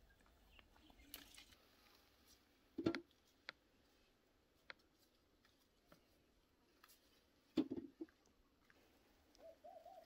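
Quiet outdoor ambience broken by a few short knocks, the two loudest about three and seven and a half seconds in. Near the end there is a brief bird call that rises and falls.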